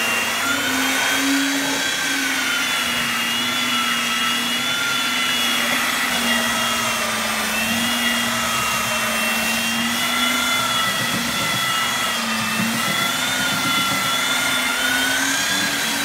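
Handheld electric belt sander running continuously against wooden framing, sanding the top edges flush. A steady motor whine that wavers slightly in pitch as the sander is pushed along the wood.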